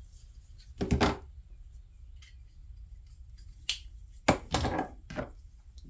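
Folding knives being handled and set down on a hard surface: a few short knocks and clunks, about a second in and again a cluster near four and a half seconds in.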